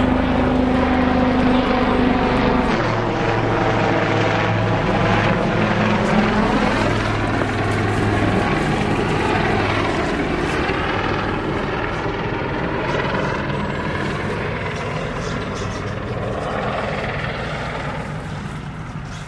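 Helicopter flying overhead: a steady rotor drone whose pitch drops about three seconds in as it passes, then slowly fades away.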